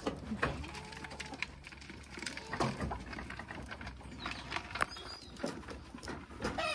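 Goats feeding from a plastic bucket: irregular knocks, rattles and rustles of feed and bucket, with a few faint bird-like calls from the chickens in the pen.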